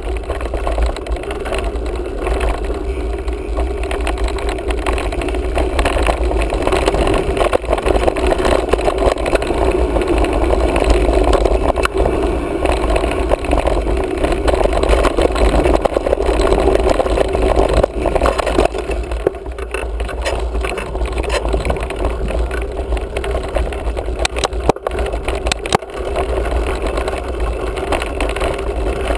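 Wind rumbling on an action camera's microphone while a mountain bike rolls over a sandy dirt track, with the tyres and bike rattling over the rough ground. A few sharp knocks from bumps come near the end.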